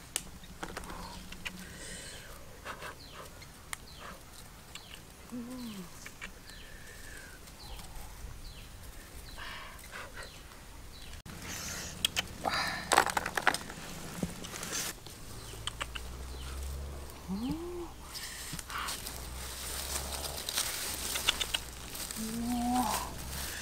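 Hands rustling through a dry-grass nest and quail eggs clicking together as they are dropped into a wicker basket, with a burst of clicks about halfway through. A few short, low, arching calls from an animal come now and then.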